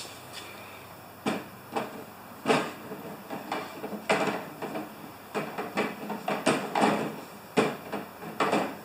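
Irregular clicks, knocks and scrapes of a long tool working inside a snow thrower's fuel tank filler opening to fish out a gas-soaked rag, about ten of them spread out with short pauses between.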